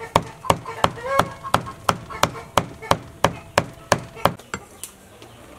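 Large knife chopping raw pork into mince on a wooden cutting board, a steady rhythm of about three strikes a second that stops about four and a half seconds in.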